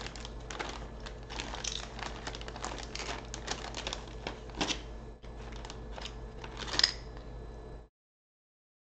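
Metal garlic press clicking and rattling as garlic cloves are pressed, a dense run of small clicks. The sound cuts out suddenly near the end.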